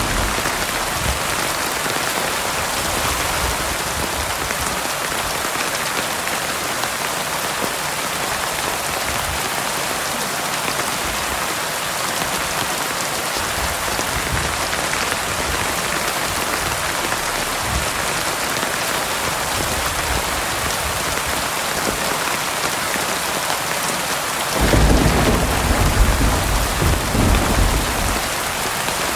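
Heavy rain falling steadily. A deep roll of thunder comes in near the end and rumbles for about four seconds.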